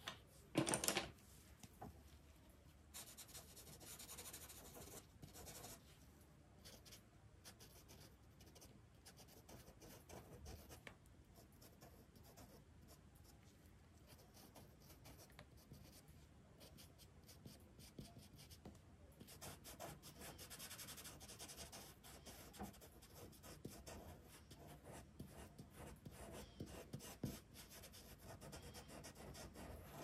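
A pencil scratching and rubbing on drawing paper in short strokes, faint throughout, with a single knock about a second in.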